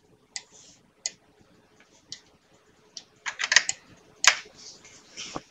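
A few scattered, irregular clicks of a computer keyboard and mouse, with a small cluster of them about two thirds of the way in. A faint steady hum runs underneath.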